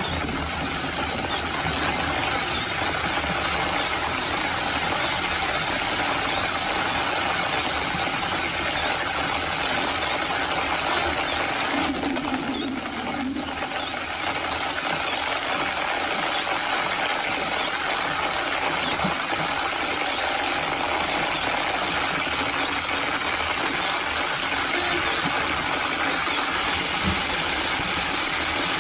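Steady noise of a vehicle driving through heavy rain, heard from inside: engine running, tyres on a wet road and rain hitting the windshield.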